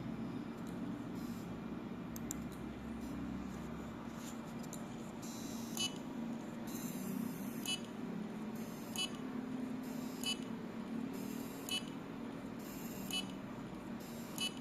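Seagate hard drive ticking: a short high-pitched click repeats about every second and a half over a steady low hum, with fainter clicks before the regular rhythm sets in. This is the kind of repeating tick commonly associated with a failing drive.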